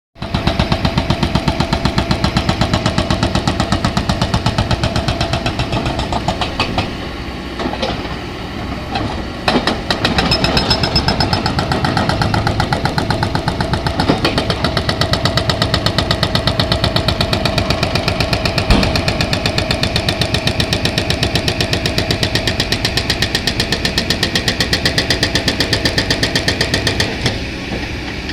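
Excavator's diesel engine running with a rapid, even beat, easing off for a few seconds about a third of the way in.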